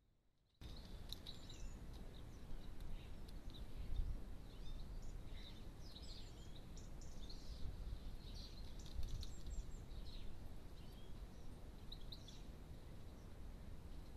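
Small garden songbirds calling with short, high chirps and twitters, over a low steady rumble.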